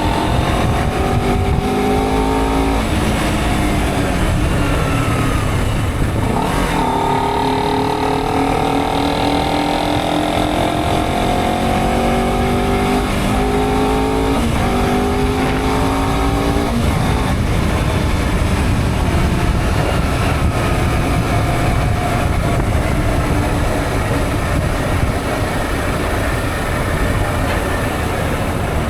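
Honda CBR250RR motorcycle engine accelerating through the gears: the engine note climbs and drops back at each upshift, about five times. In the second half it settles into a steadier, lower note while cruising.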